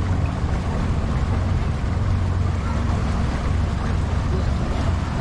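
Motorboat engine running steadily with a low hum, under the rush of wind and water.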